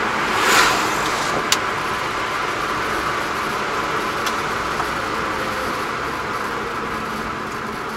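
Kei truck driving on the road, heard from inside the cab: a steady drone of engine and tyre noise. An oncoming car swishes past about half a second in, and there is a single sharp click about a second and a half in.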